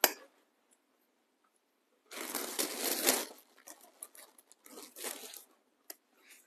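Crinkling and rustling of a bag of fiberfill stuffing as stuffing is pulled from it: a sharp click at the start, a loud crinkling burst about two seconds in lasting about a second, then softer rustles.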